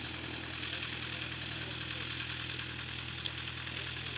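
Cessna 172's piston engine and propeller running at low taxi power, a steady low drone with a higher hiss over it. A single short click about three seconds in.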